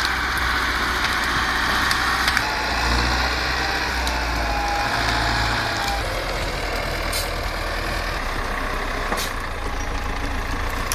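Diesel engine of a log-loaded logging truck running steadily under load as it crawls slowly uphill.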